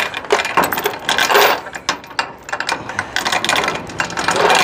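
Steel tie-down chain clinking and rattling in irregular clicks as it is pulled and hooked.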